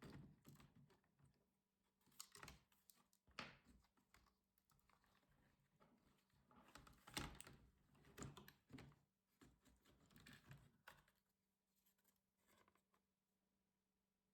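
Faint clicks and short scrapes of laptop parts and tools being handled during disassembly, stopping about eleven seconds in.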